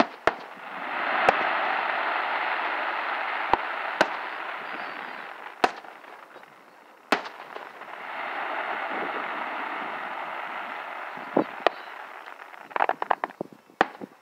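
Aerial firework shells bursting at a distance: sharp bangs scattered through, two long hissing swells that rise and fade, and a quick cluster of crackling pops near the end.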